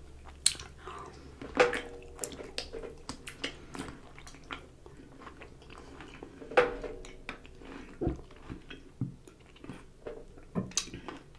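A person chewing a mouthful of spicy pickle close to the microphone: wet, crunching mouth sounds, loudest about one and a half seconds in and again near seven seconds.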